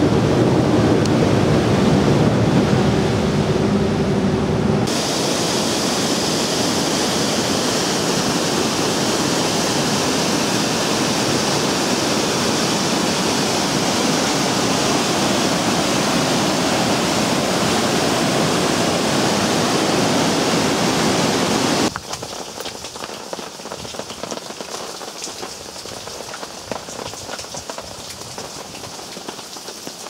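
Bus engine hum and heavy rain inside a moving bus. About five seconds in, this cuts to a loud, steady rush of a rain-swollen torrent of whitewater. A little past twenty seconds, it cuts again to quieter, steady rain falling.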